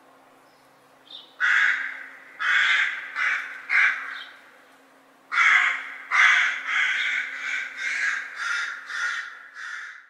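Crows and magpies cawing: four harsh caws a second or so in, then after a short pause a fast run of about ten caws near the end.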